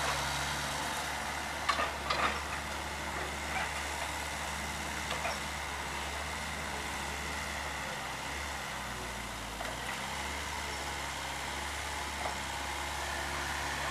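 Diesel engine of a Komatsu PC40-7 mini excavator running steadily while it works. A few short scrapes and clinks of shovels in gravel come about two seconds in, with fainter ones later.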